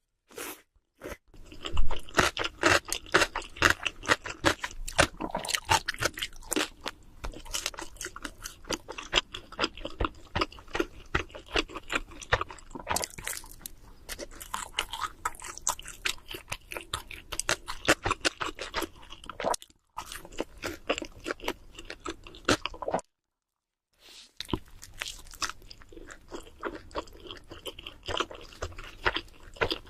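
Close-miked chewing and crunching of cheese seafood pizza, many quick crisp crunches in a dense run. The sound drops out for about a second near the start and again for over a second about three quarters of the way through.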